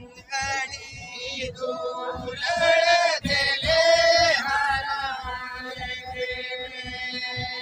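Group of men singing a Santali song together, with banam bowed folk fiddles playing along under a steady held tone. The singing swells loudest from about two and a half seconds in to about four and a half seconds.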